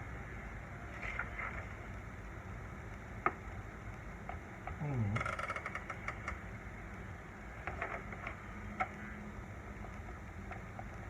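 Olivetti Lettera 92 manual typewriter: a few isolated key strikes and a short rattle of the mechanism about five seconds in, over a steady background hum.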